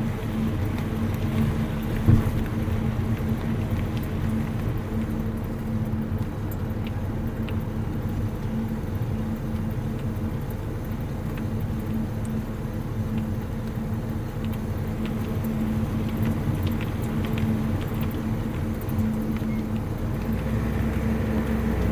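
Tyre and road noise heard from inside the rear wheel arch of a BMW G21 330d xDrive while driving, with a steady buzzing hum underneath and a single knock about two seconds in. The owner traces the hum to the brake vacuum pump, its vibration carried through the vacuum lines and amplified by the road surface.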